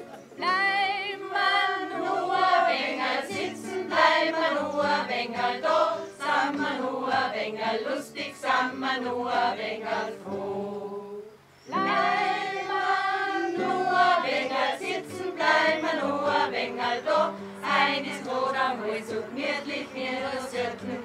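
A choir of women singing together. The song breaks off for a brief pause about eleven seconds in, then goes on.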